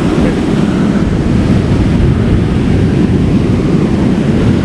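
Steady rush of strong wind buffeting the microphone, mixed with the wash of surf on the beach.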